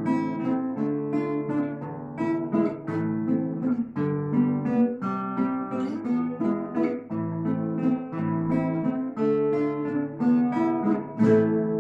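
A duet of plucked string instruments, sounding like acoustic guitars, plays the closing bars of a piece. It ends on a loud strummed chord about eleven seconds in that is left ringing.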